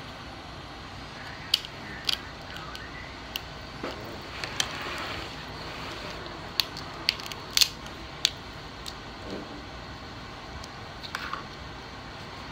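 King crab leg shell being snipped with small scissors and broken apart by hand: scattered sharp clicks and cracks at irregular intervals, with a brief soft rustle in the middle.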